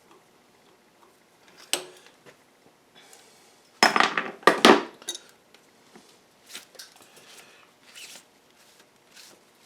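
Small metal hand tools being handled on a metal bench: a single clank about two seconds in, a louder cluster of clinking and clatter around four seconds in, then scattered light ticks.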